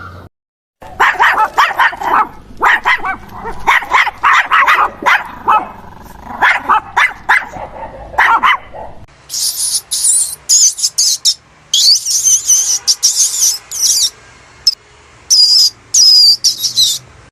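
Small dog or puppy barking in rapid yips for about eight seconds. Then comes a run of high-pitched squeaks and chirps.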